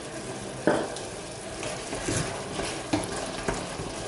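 A pan of okra and tomato stew simmering on the hob while a wooden spoon stirs it, with one sharp knock just under a second in and a few lighter taps later.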